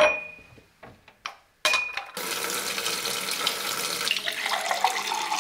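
A glass tumbler clinks twice on the countertop, then a kitchen tap runs water into it, the pitch rising as the glass fills.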